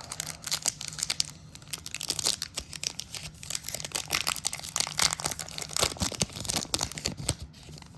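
Crinkling and rustling of a foil trading-card pack wrapper, with cards being handled: a run of irregular small crackles and clicks.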